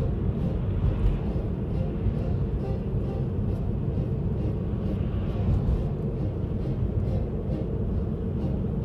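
Steady low road and engine noise of a car driving at town speed, heard from inside the cabin.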